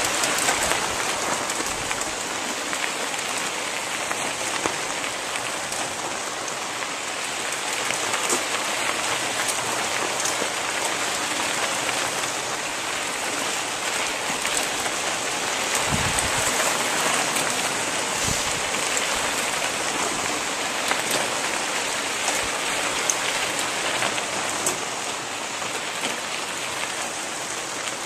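Steady crackling hiss of many knobby mountain-bike tyres rolling over a dirt and gravel road as a pack of riders passes close by, with a constant patter of small ticks.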